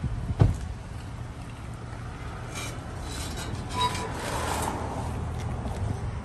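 Vehicle engine idling steadily, with one sharp knock about half a second in and a short clatter around four seconds in.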